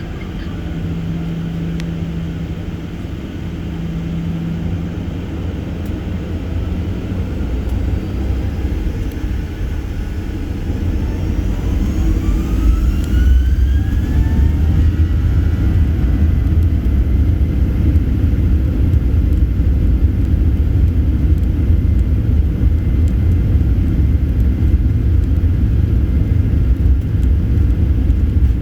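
Boeing 737-800's CFM56 jet engines heard from inside the cabin: a steady low hum, then a rising whine about ten seconds in as they spool up to takeoff thrust, giving way to a louder steady rumble of the takeoff roll.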